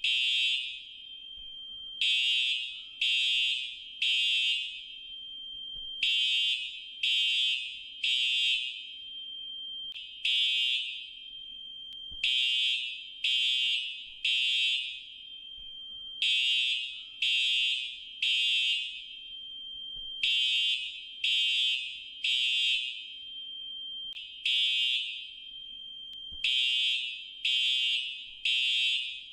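Fire alarm sounding loud, high-pitched beeps about a second apart, mostly in groups of three with a longer pause between groups: an emergency evacuation signal.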